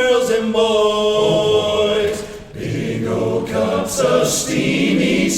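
Men's a cappella voices singing in close barbershop harmony: a chord held for about two seconds, a short break about two and a half seconds in, then the singing picks up again.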